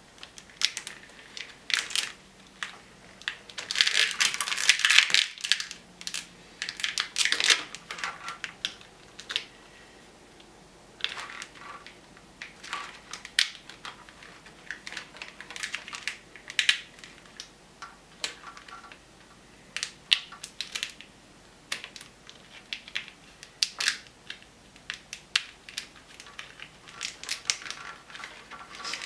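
Plastic wire loom crackling and crinkling in irregular bursts as a bundle of wires is worked into it by hand, loudest about four to eight seconds in.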